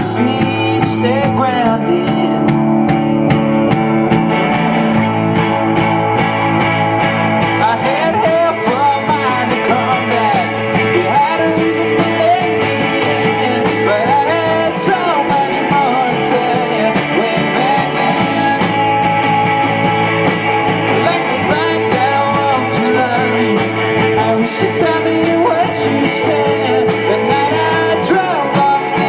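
A band playing roots rock live, with a lead voice singing over it.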